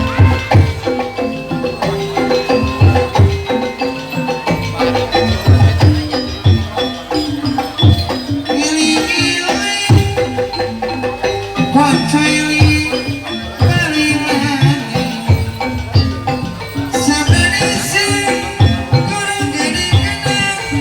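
Javanese gamelan music for kuda lumping: pitched metal percussion playing interlocking melodic lines over regular hand-drum strokes, with brighter, higher passages coming in a few times.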